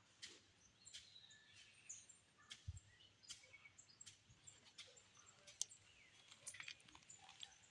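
Faint outdoor ambience with scattered short, high bird chirps and ticks, and a soft low thump about three seconds in.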